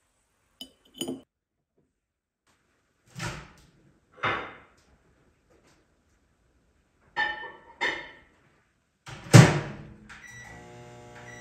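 A metal fork and ceramic dishes clinking and tapping on a table about six times. Near the end a microwave oven door thunks shut and the oven starts running with a steady hum.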